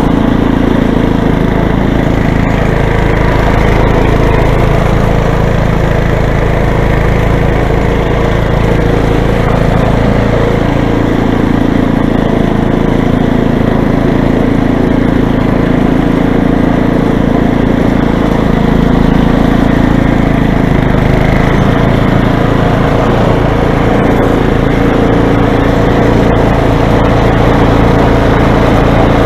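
Toro snow blower's engine running steadily and loudly throughout, its pitch wavering slightly.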